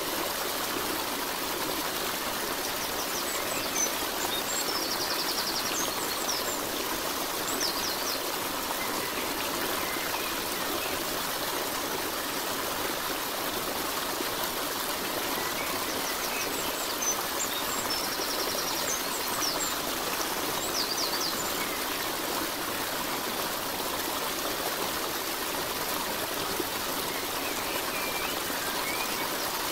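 Steady rushing and trickling of a stream, with brief high chirps twice, once a few seconds in and again past the middle.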